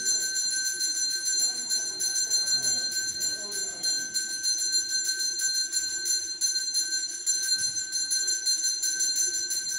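Temple bell ringing continuously, struck in rapid even strokes, with a bright metallic tone. Faint voices are under it for the first few seconds.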